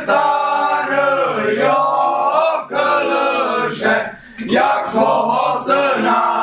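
A group of young men singing a Ukrainian Christmas carol (koliada) in long drawn-out phrases, with a short break for breath about four seconds in.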